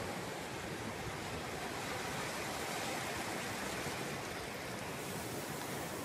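Small waves breaking offshore and washing up a sandy beach in shallow foam: a steady rush of surf.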